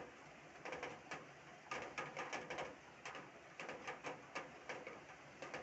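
Raindrops hitting a hard surface in heavy rain: irregular sharp taps, several a second, over a faint hiss of rain.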